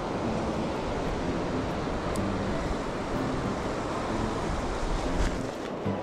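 Surf washing in and breaking on a sandy beach, a steady rush of water with wind on the microphone.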